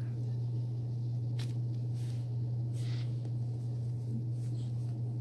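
Steady low background hum, with a faint click and a couple of soft breathy sounds in the middle.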